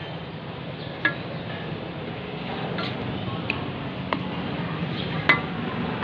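Metal spatula stirring a papaya-leaf stir-fry in a pan, knocking sharply against the pan four or five times, the loudest knock near the end, over a steady hiss.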